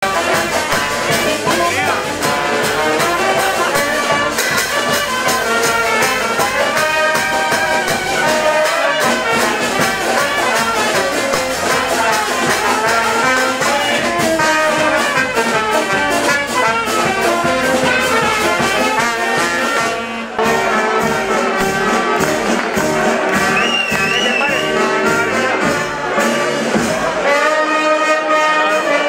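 Brass band music, trumpets and trombones playing a tune over a steady beat, with a brief break about twenty seconds in.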